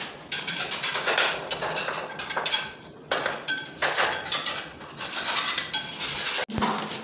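Hand tools scraping and clinking against a marble vanity top, in repeated uneven strokes with short metallic rings.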